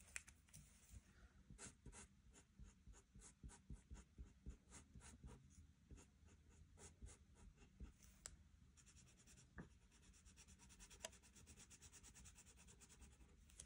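Felt-tip marker scribbling on a paper card as small squares are coloured in, faint, in short irregular strokes that turn into a quick, even run of strokes in the last few seconds.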